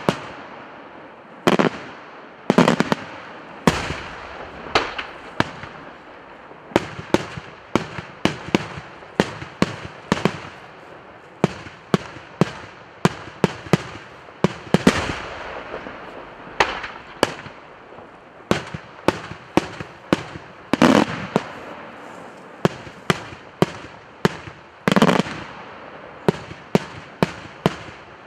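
Daytime aerial fireworks going off in a rapid, irregular series of sharp bangs, two or three a second, with a few heavier booms mixed in.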